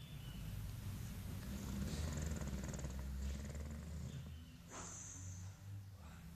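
English bulldog snoring in its sleep: a low, steady rumbling snore with short hissing breaths, the loudest about five seconds in.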